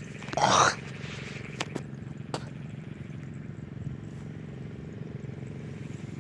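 Steady low hum of a small engine running in the background, with a loud brief rustle about half a second in and a few light clicks.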